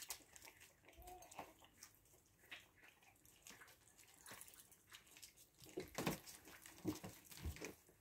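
Puppies and an adult dog licking and lapping food from a shared plate: a run of faint wet licks and smacks that grow louder in the last few seconds.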